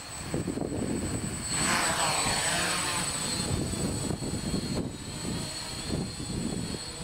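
Small electric quadcopter's propellers and motors buzzing with a steady high whine, the pitch sweeping downward a second and a half in as it passes low and close.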